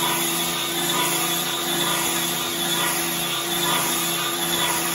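Arrma Felony 6S RC car's brushless motor and drivetrain whining steadily as the car creeps and turns at low speed on asphalt.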